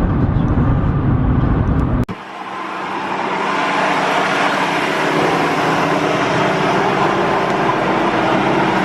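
Vehicle running noise: a steady low rumble that cuts off about two seconds in. A steady, hissing running noise then fades in and holds.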